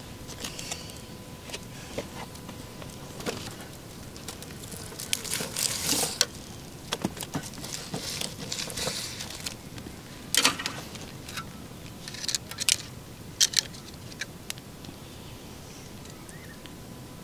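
Food being handled: rustles, crackles and a few sharp wooden clicks as a crisp-skinned roast is pulled off a bamboo skewer onto a wooden plate. The loudest clicks come in the second half.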